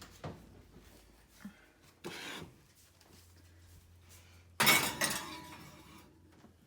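Baking dish of foil-wrapped banana boats going into the oven: a short scrape about two seconds in, then a loud clank about halfway through that rings away over about a second.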